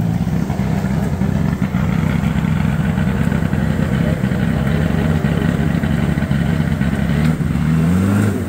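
Land Rover Discovery 300Tdi diesel engine held at high revs under heavy load as it is towed out of a deep muddy rut, blowing black smoke. It runs steadily, with a brief dip and rise in revs near the end.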